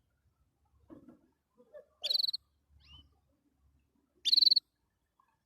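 Domestic canary calling in two short, high, buzzy bursts about two seconds apart, with faint lower chirps and rustles between them.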